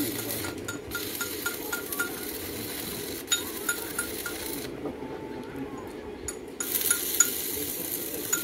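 Electric arc welding on steel reinforcing bar: two bursts of crackling, sizzling arc noise, the first about a second in lasting some three and a half seconds, the second starting near the two-thirds mark, with a short pause between.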